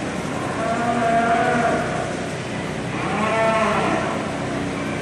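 Cattle mooing twice, one call about a second in and another about three seconds in. Each call lasts about a second and rises then falls in pitch, over steady background noise.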